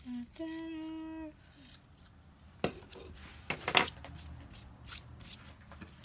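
A person hums a short two-note "mm-hmm": a brief low note, then a longer, higher held note. After that come rustling and a few sharp clicks as fabric and craft items are handled on a tabletop, loudest about halfway through.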